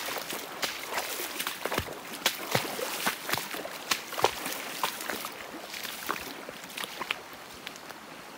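Footsteps splashing and knocking through a shallow, running creek over a steady rush of flowing water, about two steps a second; the steps thin out near the end.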